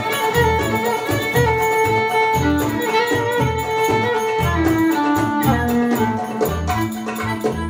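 Live belly-dance music: a violin plays long held melody notes over a small acoustic band of mandolin, double bass and dumbek, with the drum beating out a steady rhythm.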